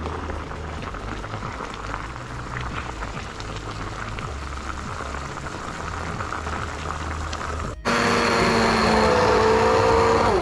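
Vegetable soup bubbling at a boil in a pan, then about eight seconds in a hand-held immersion blender starts suddenly and runs loud and steady with a whirring motor tone as it purées the soup.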